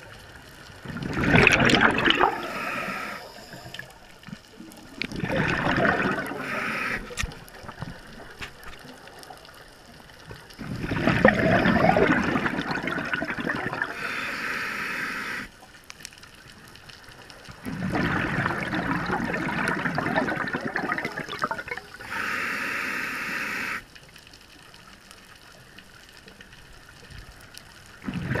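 Scuba diver breathing through a regulator underwater: four loud bubbling exhales a few seconds apart, with a short steady hiss of the regulator on the inhales in between.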